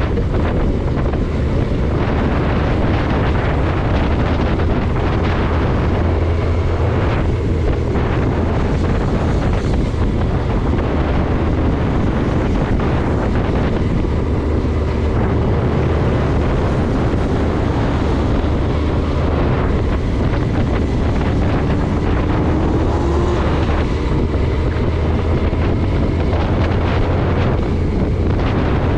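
Steady driving noise of a car on the road: a low rumble of engine and tyres with wind noise, and a faint rising whine about two-thirds of the way through.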